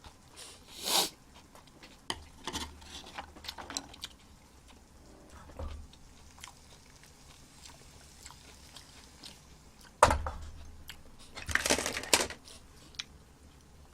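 Close-miked eating sounds: chewing and mouth noises from someone eating eggs, with scattered small clicks and a sharper, louder sound about ten seconds in.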